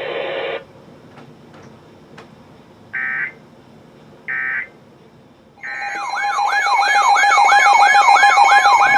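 Emergency Alert System broadcast: three short screeching digital data bursts about a second and a half apart, the end-of-message code that closes the warning. About six seconds in, a loud warbling siren-like alert tone starts, sweeping up and down about three times a second and growing louder.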